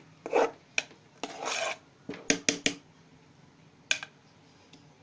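Thick ground urad dal batter being beaten and scraped round a bowl. Irregular scrapes and clicks come in uneven strokes, with a longer scrape about a second and a half in and a quick run of strokes a little after two seconds.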